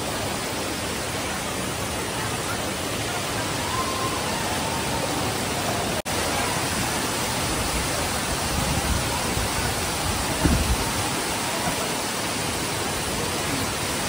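Steady rushing of the Koshmal waterfall cascading over rocks, broken by a split-second dropout about six seconds in, with a brief low thump a little after ten seconds.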